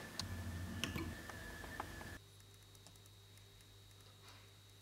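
A few faint, sharp clicks from a laptop's keys over a low hum, then near silence for the second half.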